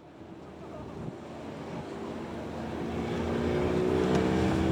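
Boat engine running steadily with wind and water noise, growing louder as it fades in.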